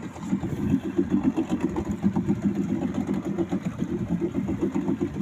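A small fishing boat's engine running steadily with a fast, even chug.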